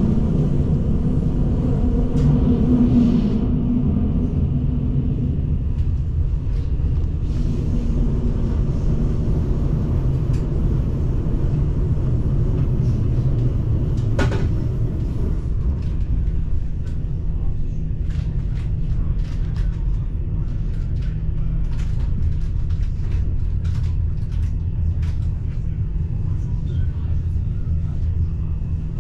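Inside a moving passenger train carriage: a steady low rumble of the train running on the rails. It is heavier for the first few seconds, with scattered light clicks and creaks later on.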